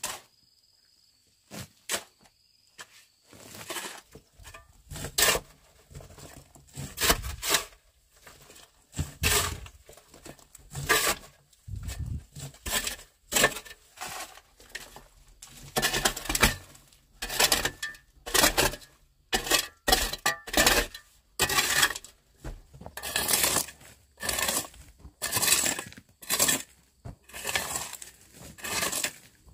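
Metal shovel digging and scraping through dry, gravelly soil. The scrapes come roughly once a second, starting a few seconds in.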